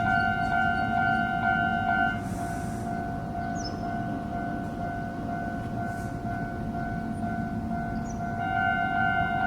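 Japanese railway level-crossing warning bell ringing its repeated 'kan-kan' strokes. It drops to a fainter ring about two seconds in and comes back up to full strength near the end, while a train passes with a low rumble underneath.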